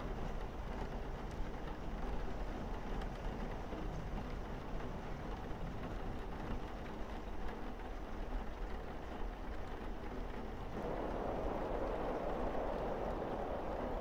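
Steady rain falling on a roof and windows, an even hiss over a low rumble. It grows a little fuller and louder about eleven seconds in.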